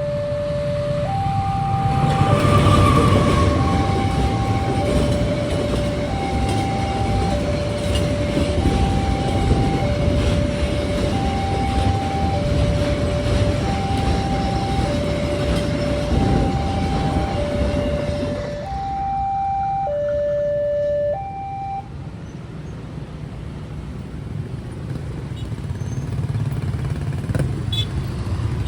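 Railway level-crossing alarm sounding its two-tone electronic warning, alternating a lower and a higher note about every second and a quarter. A train rumbles through the crossing for most of the alarm. The rumble falls away about 18 seconds in, and the alarm stops about three seconds later.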